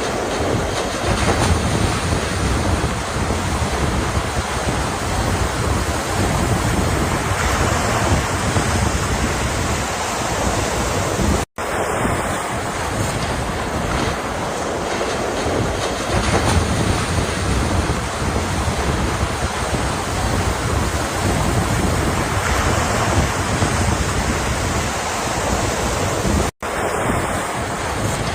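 Ocean surf: waves breaking and washing in a steady rush with a deep low rumble, cut twice by a sudden split-second silence, about a third of the way in and near the end.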